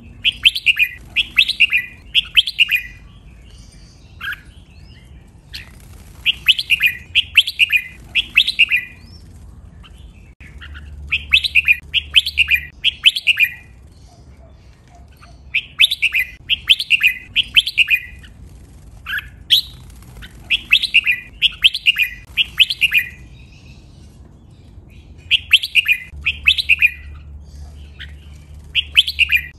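Red-whiskered bulbul singing: a phrase of three to five quick, loud notes, repeated every four to five seconds with short pauses between.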